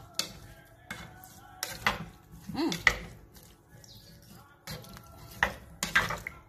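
Spatula stirring sliced potatoes in milk in a nonstick pan, with irregular knocks and scrapes against the pan and the potato pieces.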